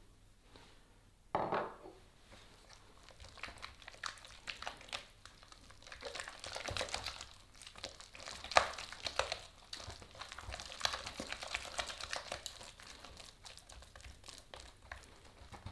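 Spatula working egg yolks into soft creamed butter and caramel in a bowl: irregular wet scraping and squishing strokes, thickest in the middle, after a short louder sound about a second and a half in.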